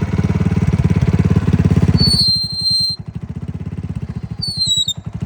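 A motor running with a fast, steady throb. High squealing tones come in about two seconds in and again near the end.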